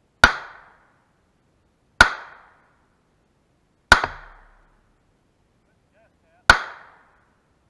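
Four 9mm pistol shots from a Ruger EC9s, about two seconds apart, each a sharp crack that fades over about half a second.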